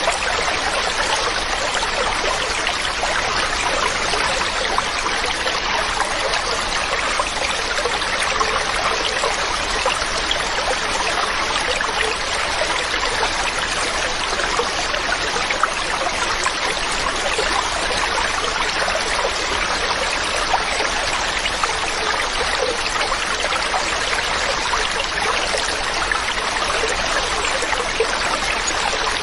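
Mountain stream running steadily, a constant rushing and trickling of water.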